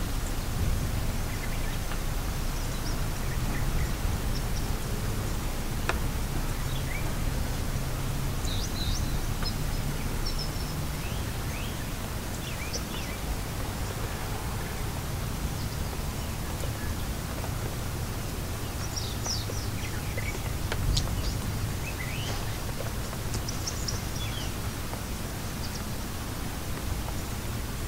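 Steady rain ambience with birds chirping here and there, in short scattered calls.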